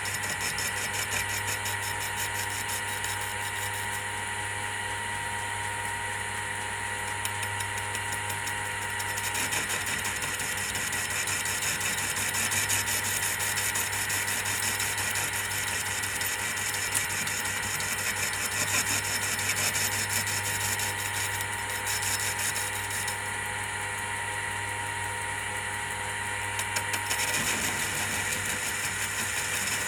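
Mini lathe running steadily while turning a pipe sleeve: a constant motor hum with a steady whine over it. The higher hiss eases off twice for a few seconds each time.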